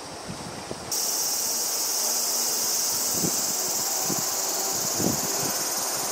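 Cicadas buzzing: a steady high-pitched drone that starts abruptly about a second in. A few soft low bumps come through it.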